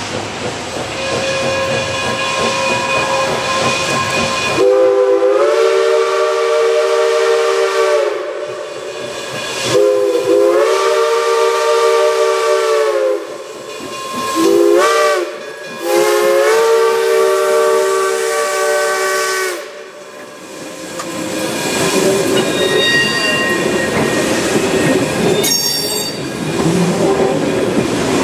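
Wilmington and Western 4-4-0 No. 98 steam locomotive blowing its three-chime logging whistle: two long blasts, a short one and a long one, each rising into the chord as it opens. This is the grade-crossing signal. Then the train's passenger coaches roll past on the rails, with a sharp clank near the end.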